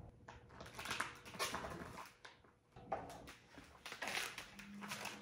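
Sheet of glossy metallic vinyl wrap film crinkling and rustling as it is pulled and bunched up by hand, in uneven bursts with a short lull a little past the middle.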